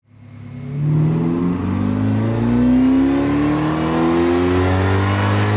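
ProCharger-supercharged C8 Corvette's LT2 V8 accelerating. It fades in over the first second, then its pitch climbs steadily.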